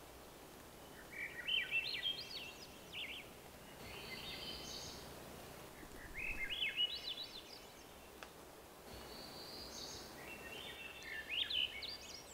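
Swainson's thrush singing: three flute-like phrases, each spiralling upward in pitch, a few seconds apart. Shorter steady high notes fall between them.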